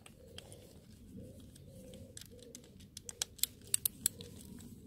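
Hands working inside a plastic wing-mirror housing with a small screwdriver: light handling noise, with a quick run of sharp clicks and taps about three to four seconds in, over a faint steady background.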